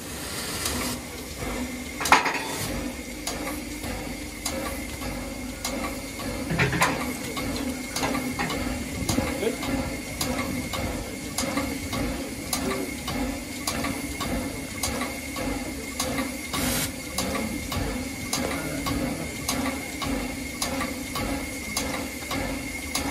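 Narrow-gauge steam train in motion: a steady running noise with an even metallic clatter about two times a second, and one sharp knock about two seconds in.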